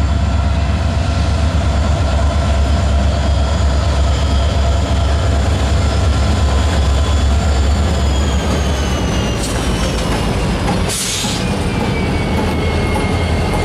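Two Norfolk Southern six-axle diesel locomotives pulling a freight of covered hopper cars past at low speed: a heavy, steady engine rumble under a whine whose pitch slides slowly down from about eight seconds in. The rumble eases about eleven seconds in as the units go by and the cars roll past, with a brief hiss at the same moment.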